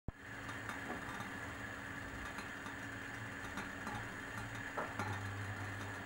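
Water heating in a glass teapot: a steady low hum and hiss with scattered small ticks as bubbles start to form.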